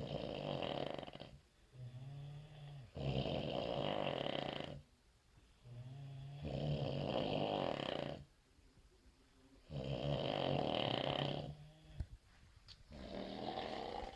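Loud snoring, one snore on each breath about every three seconds: a low droning tone that swells into a loud rasping snore. A single sharp click is heard about twelve seconds in.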